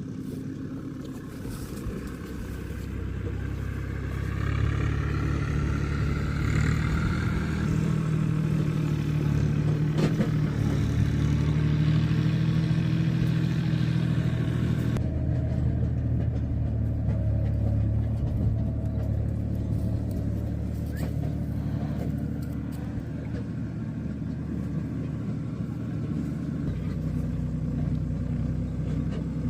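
An engine running steadily with a low hum, getting louder about four seconds in.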